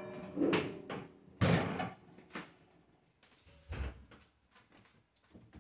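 Kitchen cupboard doors and cookware knocking and clattering as things are pulled out: a few sharp knocks with a short ring in the first couple of seconds, then fainter thumps near the end.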